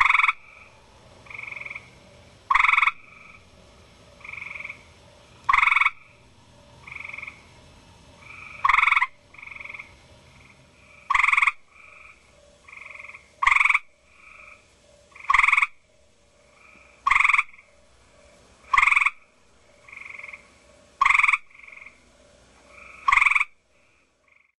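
Male Eastern gray treefrog (Hyla versicolor) giving its loud, short trilled call, about eleven times, one every two to three seconds and coming a little faster towards the end, with fainter frog calls in the gaps between.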